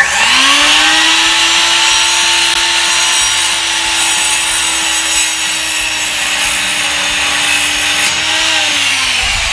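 Electric power saw spinning up and cutting wedge notches out of wooden 2x2 boards, a steady loud whine that winds down near the end.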